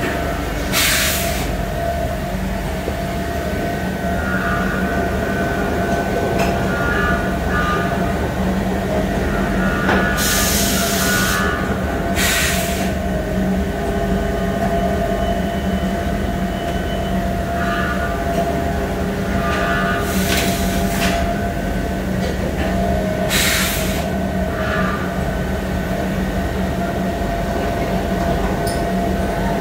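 Okuma Multus B200 II CNC turn-mill machining center running, with a steady mechanical hum and a whine that comes and goes. Five short bursts of hiss break through: one about a second in, two around the middle, and two more later on.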